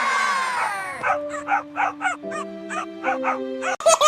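Cartoon puppy voices howling together, sliding down in pitch, followed by a short music cue with a steady beat of about four pulses a second under held chords. Laughter breaks in near the end.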